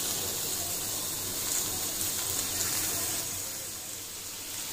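Chicken seekh kebabs sizzling in a little oil in a nonstick grill pan over medium-low gas heat, frying on their first side. A steady hiss that dips slightly about four seconds in.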